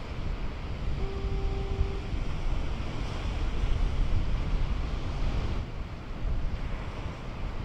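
Wind rumbling on the microphone over the wash of big ocean surf, growing louder through the middle as a wave breaks. A brief steady horn-like tone sounds for about a second, about a second in.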